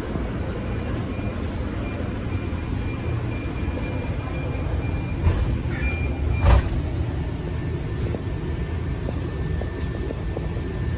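Steady low rumble inside a light-rail car standing at a station platform, with a single short thump about six and a half seconds in.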